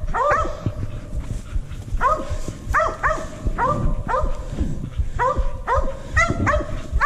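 Mountain cur hunting dogs barking at a tree, where they have treed a raccoon. Their short, chopping barks come in quick clusters of two or three about every second, over close footsteps and brush rustling.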